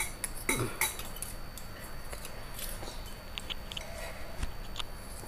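Forks and spoons clicking and scraping against ceramic plates and a bowl as noodles are twirled up and eaten, a scatter of short sharp ticks.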